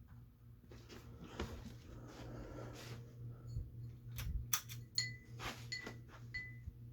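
Hampton Bay St. Vincent ceiling fan's motor humming steadily with a slight pulse, while a run of sharp clicks and light metallic rattles comes and goes over it, the sharpest about four to five seconds in.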